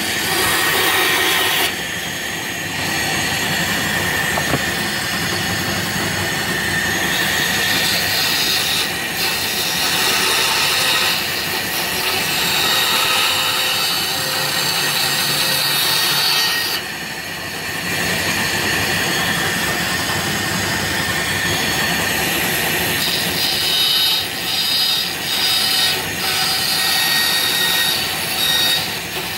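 Multi-speed bandsaw with a 3/4-inch blade cutting through thick layered plywood, a continuous sawing noise over a steady high tone from the running saw. The cut eases briefly about two seconds in and again just past halfway, and the sound wavers near the end as the piece is turned.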